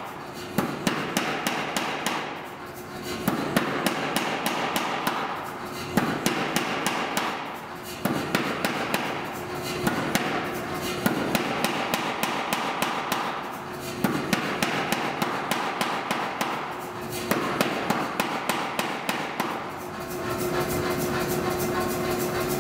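Power hammer striking a red-hot steel bar held in tongs between its flat dies, in runs of rapid blows, several a second, separated by short pauses, over the machine's steady hum. The blows stop about 20 seconds in, leaving only the hum.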